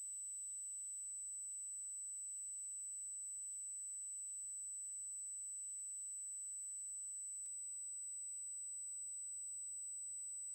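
A steady high-pitched electronic whine over faint hiss.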